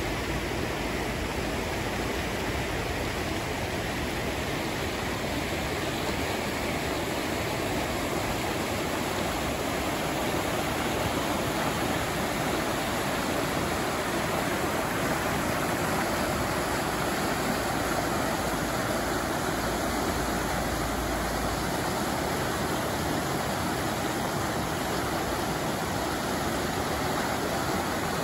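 Fast-flowing mountain river rushing over rocks and rapids: a steady noise of white water.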